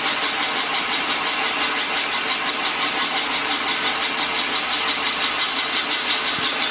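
Van Norman 944S cylinder boring bar running on automatic feed, its cutter boring a cylinder of a cast-iron Willys F-head engine block: a steady machine whir with a cutting hiss.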